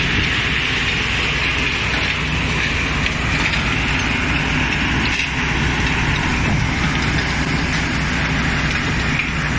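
Stone crushing production line running: a steady mix of low machinery rumble from crushers and conveyors with a constant hiss over it.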